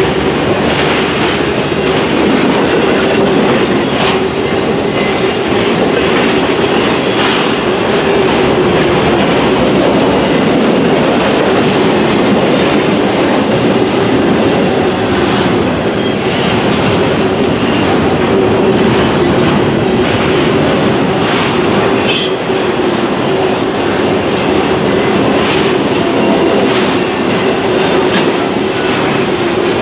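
Intermodal freight train's cars rolling past close by: a steady, loud rattle of steel wheels on rail, with a continuous hum and scattered clicks of wheels over the track.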